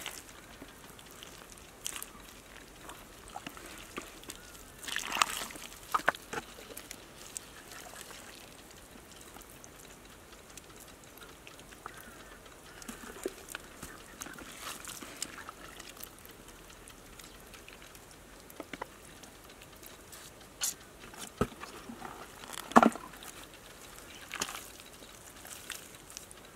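Bare hands digging and scooping wet mud from a hole: scattered squelches, wet slaps and small splashes, the sharpest slap near the end.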